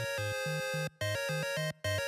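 Background music: steady electronic notes over a bouncing bass line, cutting out for a split second twice.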